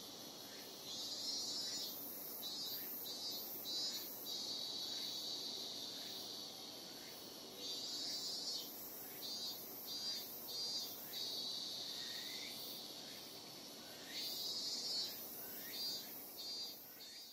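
Insects singing: a steady high drone with a louder pulsing phrase, a burst then three or four short pulses, repeating about every six and a half seconds. It fades out at the very end.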